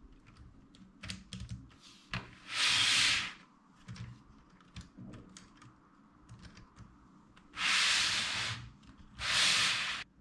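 Lego Technic plastic parts clicking and rattling as the car lift's arms are adjusted by hand, with three rubbing sounds of about a second each, plastic sliding against plastic: one about two seconds in and two close together near the end.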